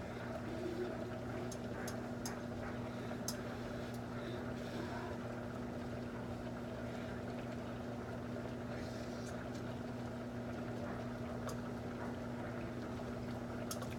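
Steady low hum of a running motor or appliance, with a few faint clicks.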